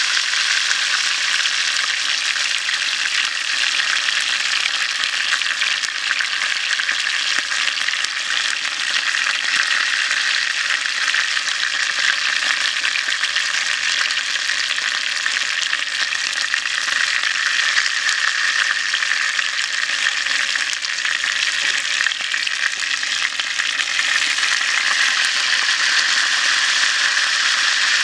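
Chicken head and neck deep-frying in hot oil in a small rectangular pan: a steady, continuous sizzle of bubbling oil.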